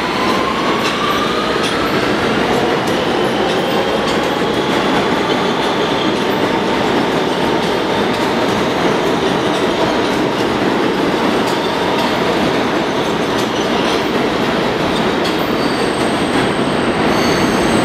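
New York City subway train pulling out of the station close by, a steady loud rumble and clatter of steel wheels on the rails. Over the first few seconds the electric traction motors whine up in pitch as it accelerates, and a thin high wheel squeal comes in near the end.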